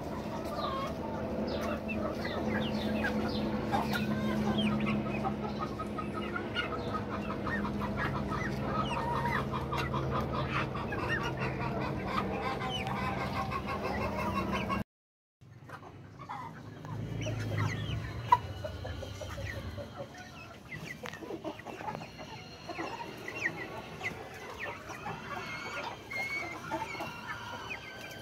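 A flock of young Light Sussex chickens, about ten weeks old, calling and clucking in many short overlapping calls. About halfway the sound cuts out for a moment, then the calls go on quieter, with a single sharp click soon after.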